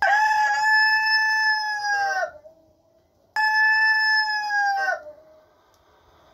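A rooster crowing twice, each crow a long held call that drops in pitch at the end; the second crow is shorter.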